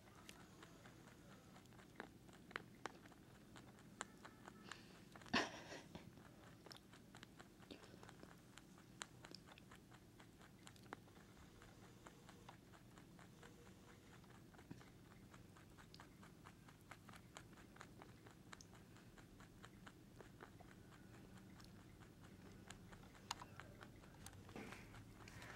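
A pet rabbit chewing and crunching its food close to the microphone: faint, rapid crunchy clicks, with one louder crunch about five seconds in.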